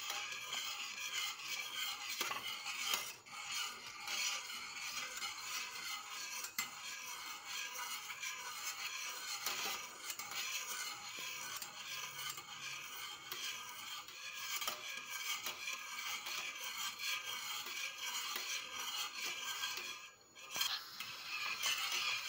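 Wire whisk stirring and scraping continuously around a stainless steel pot of cocoa and cornstarch pudding as it thickens on the heat. The scraping stops briefly near the end.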